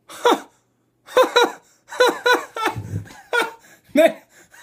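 A man laughing in a run of short bursts, beginning about a second in.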